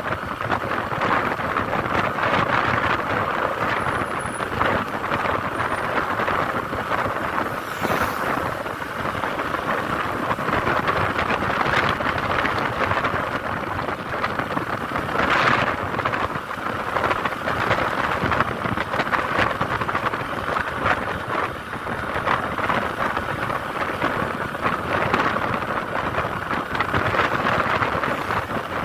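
Steady vehicle noise with wind buffeting the microphone.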